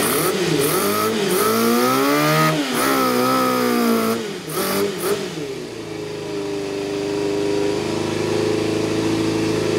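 A 1990 Yamaha FZR250's four-cylinder engine running with its carburettor intakes open, revved up and down several times in the first four seconds. It then settles to a steady idle.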